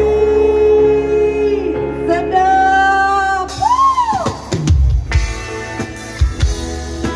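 Female singer with a live band holding a long sung note over keyboard and guitar; about four seconds in the sound swoops up and then sharply down. The band then plays on without the voice, with drum hits and guitar.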